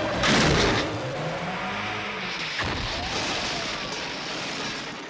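Film car-chase sound effects: a sudden loud burst about half a second in, then engines running under steady road noise, with a pitch that rises and falls, and a sharp knock a little after two and a half seconds.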